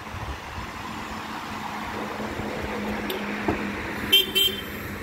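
Steady car and traffic noise with a constant engine hum. A click comes about three and a half seconds in, and a brief pitched toot like a car horn sounds near the end.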